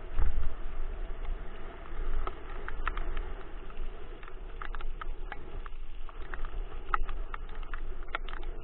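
Dog scooter rolling quickly over a leaf-strewn asphalt path, heard through its mounted camera as a steady low rumble and road noise. Scattered sharp clicks and ticks run through the second half.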